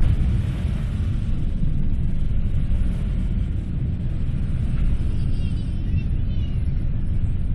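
Boeing 747 jet engines during takeoff, a loud, steady deep rumble that doesn't let up.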